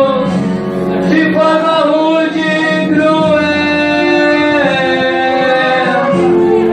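A church hymn sung with instrumental accompaniment, the voices holding long notes.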